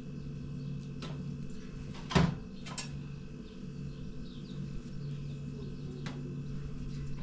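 Metal skewers and a metal tray clinking and knocking as raw meat is threaded onto kebab skewers: one sharp knock about two seconds in, a lighter one just after, and a few faint clicks. A steady low hum runs underneath.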